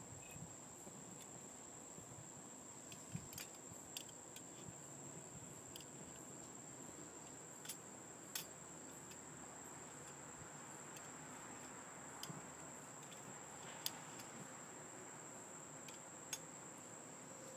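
Scattered sharp clicks and light taps as wood pellets burning in a small Esbit-type stove are poked and tended, over a faint, steady, high-pitched insect buzz.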